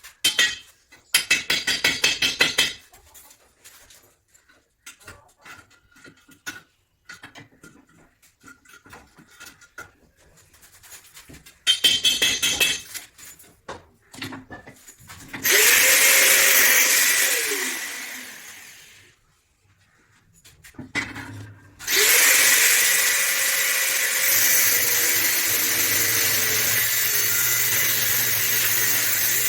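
Electric power tool: short rattling bursts, then its motor spins up and winds down over a few seconds, then starts again and runs steadily.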